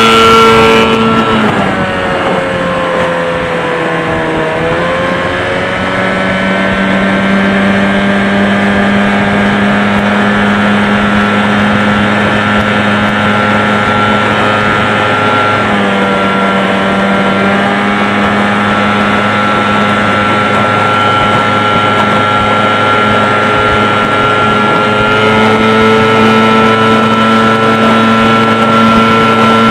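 Evinrude 15 HP two-stroke outboard running a jon boat at speed. The engine pitch drops about a second in, climbs back and holds steady, dips briefly near the middle and rises again near the end.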